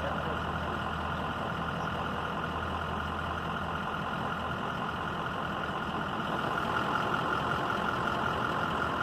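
Pickup truck engine idling steadily, heard from inside the cab. Its low hum drops away about halfway through.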